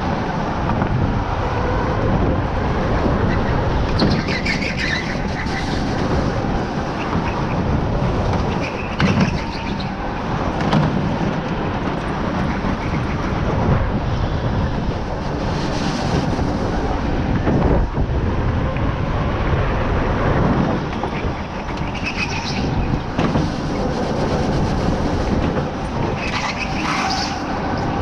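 Go-kart driven hard around an indoor track, heard from on board: a continuous rumble and rattle of the kart and its tyres, with a few brief knocks along the way.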